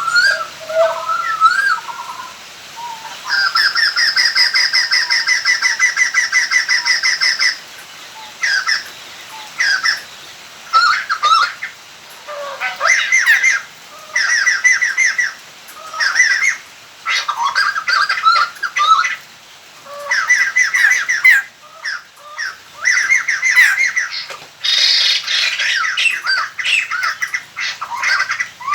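White-crested laughingthrush calling: a long rapid rattling chatter of about ten notes a second from about 3 to 7 seconds in, followed by repeated short bursts of cackling chatter. The calls serve as a lure call to draw in wild birds of the species.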